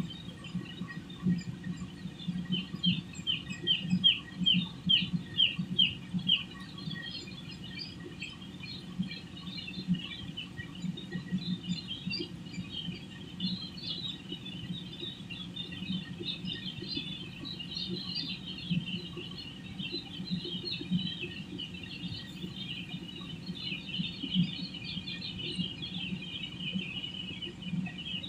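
A flock of broiler chickens peeping and chirping continuously, many birds at once, with a run of louder single chirps a few seconds in. A low steady hum sits underneath.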